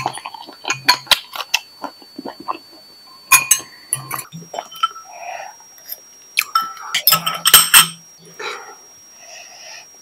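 Metal fork and spoon clicking and clinking against a glass bowl and ceramic plates in clusters, with close-miked chewing and mouth sounds in the gaps.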